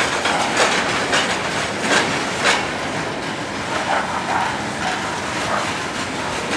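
Freight cars rolling past, their steel wheels clicking irregularly over rail joints above a steady rumbling noise.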